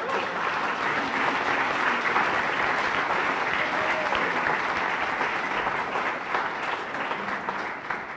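Audience applauding, the clapping tailing off near the end.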